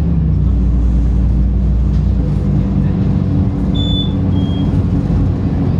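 Cabin noise of a moving city bus: a steady low engine drone with road noise. About four seconds in come two short high electronic beeps, the second a little lower than the first.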